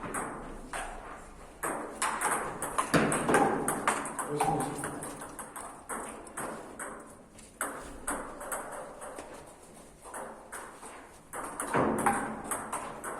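Table tennis rally: a plastic ball clicking sharply off rubber bats and the table in quick succession, with short gaps between points. Voices murmur in the background.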